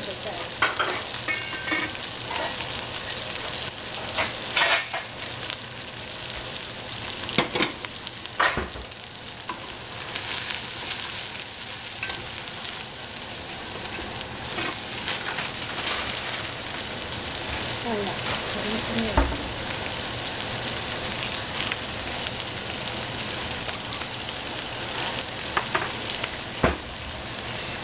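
Food sizzling in a hot frying pan as it is stirred, with a few sharp knocks of the utensil against the pan. The sizzle grows fuller about ten seconds in.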